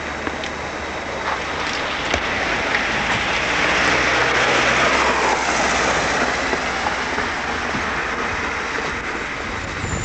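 Road traffic: a car passes close by, its rushing tyre and engine noise swelling about four seconds in, dropping in pitch as it goes by, and then easing back into steady traffic noise.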